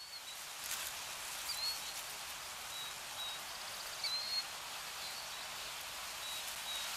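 A steady, even hiss with a few short, high bird chirps over it.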